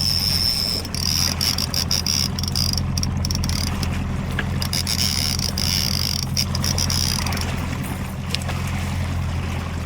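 Boat engine running steadily with a low, even hum. Over it, a thin high-pitched whine and a patter of clicks run until about seven and a half seconds in.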